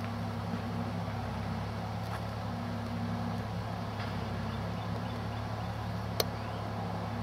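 Construction machinery engine running with a steady low drone. There is one sharp click about six seconds in.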